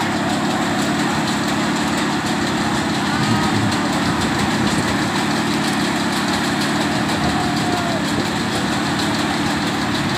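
An engine running steadily, a dense, unchanging drone, with a few faint voices over it.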